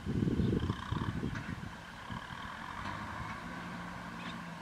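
Kubota M6040SU tractor's four-cylinder diesel engine running under load while ploughing, loud for the first second, then settling to a quieter, steadier drone as the tractor moves away.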